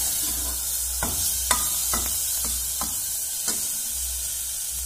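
Masala of tomatoes and spices sizzling in hot oil in a pressure cooker, with a steel ladle scraping and clinking against the pot about six times as it is stirred.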